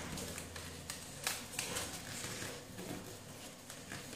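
Paper rustling and crinkling as fingers fold and press a crease into an origami model, with a few sharp crackles, the loudest about a second in.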